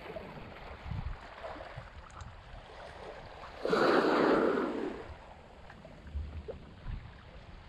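Small waves lapping in shallow sea water, with one louder wash of water splashing about four seconds in, lasting about a second.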